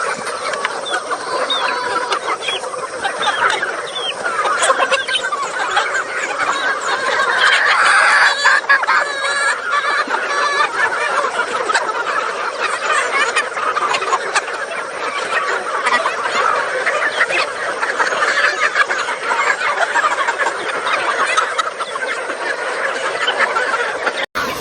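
A large flock of free-range chickens clucking, many calls overlapping into a steady din. The sound drops out for an instant just before the end.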